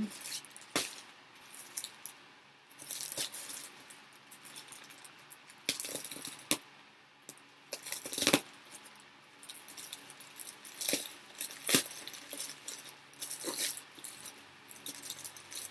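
Grey plastic mailer bag crinkling and rustling as a knife cuts it open and hands pull and tear it apart, with irregular crackles and a few sharp snaps.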